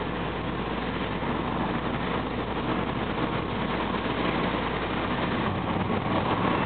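Car driving along an unpaved dirt road, heard from inside the cabin: a steady engine hum under tyre and road noise.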